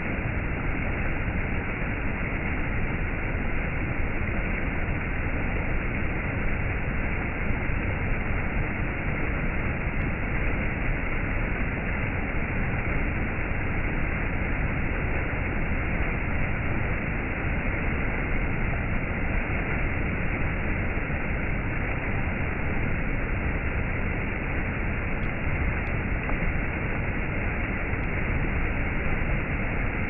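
Water from a shallow rocky stream rushing and splashing over a series of small rock ledges, in a steady cascade.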